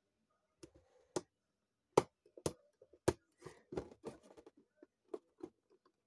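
Clicks and knocks of a hard plastic Hot Wheels container-style case as fingers pry and tap at it to get it open. The three loudest knocks come about two to three seconds in, followed by a run of smaller, quicker clicks.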